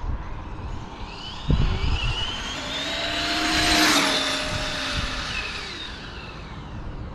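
Battery-electric RC car making a high-speed pass: a high motor whine climbs in pitch as it speeds up, is loudest about four seconds in, then drops slightly in pitch and fades as the car moves away. A short low thump comes about a second and a half in.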